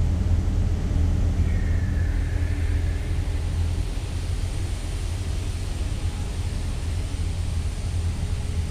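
Steady low drone of a container ship's machinery and ventilation heard inside the accommodation corridor, with faint humming tones above the rumble.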